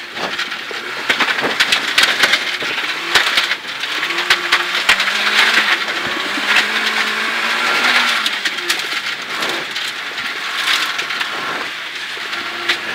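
Rally car driven hard on a gravel stage, heard from inside the cabin. The engine's note climbs and shifts in the middle over a steady hiss of tyres on loose gravel, with many sharp knocks from stones striking the car.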